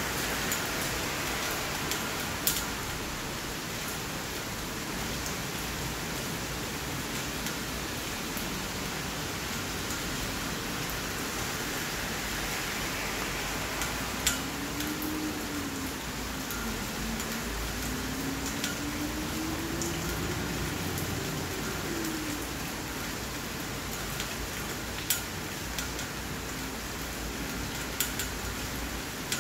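Steady rainfall, an even hiss of rain landing on wet ground and surfaces, with four sharp ticks of drops standing out above it.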